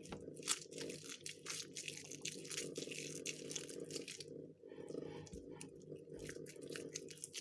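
Homemade glue-and-laundry-detergent slime being kneaded and squished by hand: a rapid string of sticky clicks and squelches, with a short lull around the middle, over a steady low hum.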